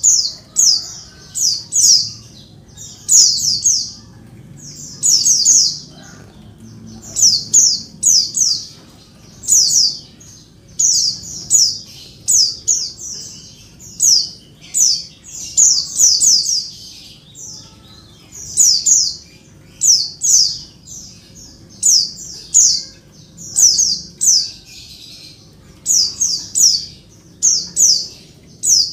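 Female white-eye (pleci) calling noisily: high-pitched chirps in quick bunches of two to four downward-sliding notes, repeated every second or two. These are a female's calls to a male.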